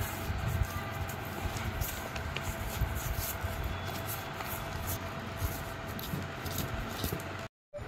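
Bristles of a small grass broom brushing and scratching across a cardboard floor in a run of short strokes, over a low steady rumble and a faint hum. The sound cuts out for a moment near the end.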